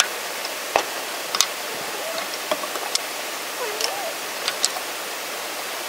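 Large log band saw running with a steady hissing rush, with several sharp knocks from the timber being shifted on the carriage and a short wavering whistle about four seconds in.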